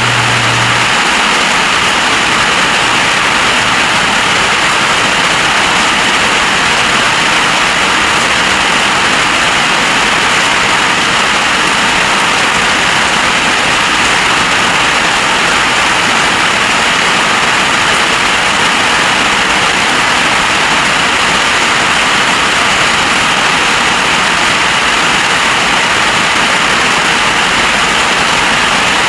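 Heavy storm rain pouring down in a loud, steady hiss. A low hum stops about a second in.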